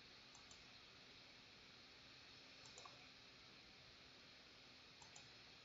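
Near silence with faint computer mouse clicks, a quick double click three times, over a low steady room hiss.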